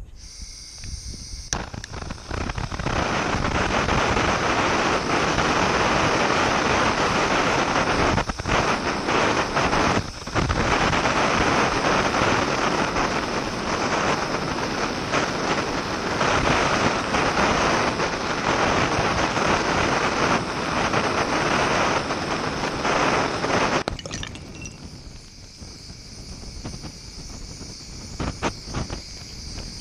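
Handheld gas torch hissing on, then its flame blasting steadily and loudly against a small glass vodka bottle for over twenty seconds. About 24 s in, the loud flame noise drops off suddenly while the hiss carries on, followed by scattered sharp cracks and pops as the heated glass bottle breaks.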